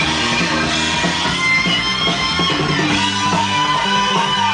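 Rock music with guitar and drums playing from a vinyl LP on a turntable.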